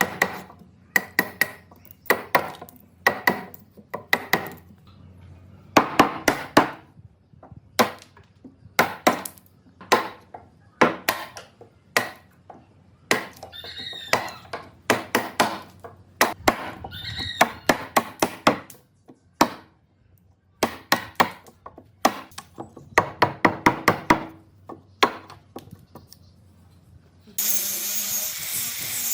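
A hand tool strikes wood over and over, in short runs of quick sharp blows with pauses between them. Near the end a small power tool starts with a steady high whir.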